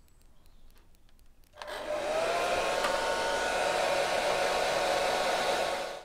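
Hand-held SilverCrest hair dryer switched on about a second and a half in: its motor whine rises briefly as it spins up, then runs steadily with a rush of air before cutting off near the end.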